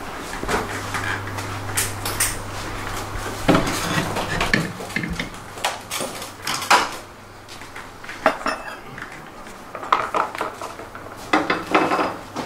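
Scattered metallic clinks and clanks of scooter CVT transmission parts and tools being handled on a steel lift deck. A low steady hum sounds underneath and stops about halfway through.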